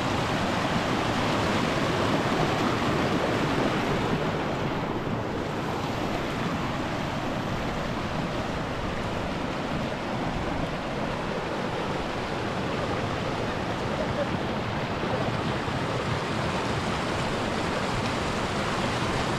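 Mountain river rushing steadily: an even, unbroken water noise.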